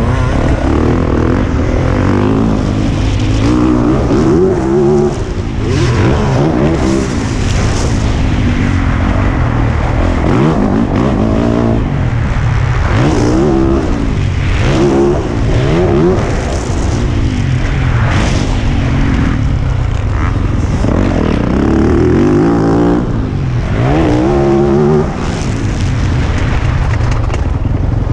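2020 Yamaha YZ450F motocross bike's single-cylinder four-stroke engine, heard from on the bike while it is ridden hard around a dirt track. The engine revs up and drops back again and again, rising and falling through the gears and into corners.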